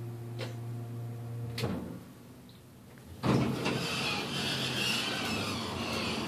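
Elevator running with a steady low hum and two clicks, then stopping. About three seconds in the doors slide open with a sudden clunk, followed by a steady hiss of noise.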